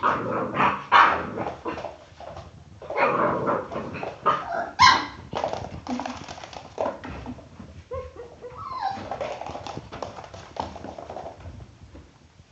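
A dog vocalising: a run of short, noisy yips and snorts, then whining that slides up and down in pitch from about eight seconds in.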